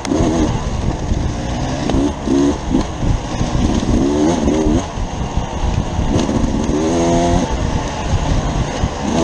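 Beta RR enduro motorcycle's engine heard from the rider's helmet, revving up and down as the throttle opens and closes, with a sharp rise in revs about seven seconds in.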